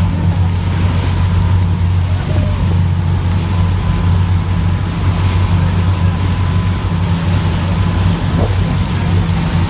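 Motorboat engine running steadily under way, a constant low drone with the rush of water from the boat's wake.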